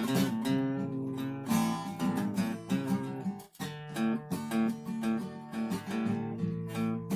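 Guitar strumming chords, with a brief break about halfway through before the playing picks up again.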